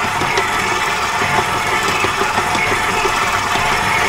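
KitchenAid stand mixer running steadily at speed 2, its dough hook kneading bread dough in the steel bowl: a continuous motor whir with a few light knocks.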